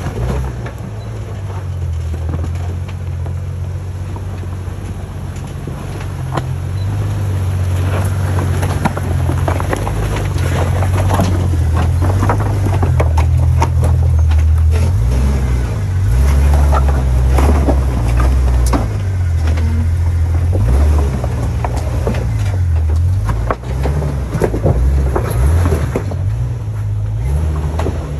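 Off-road vehicle driving down a rough trail: a heavy low rumble with many knocks and rattles over the bumps, growing louder after several seconds.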